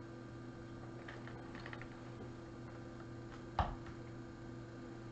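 A few faint small clicks, then a single sharp knock, over a steady low hum.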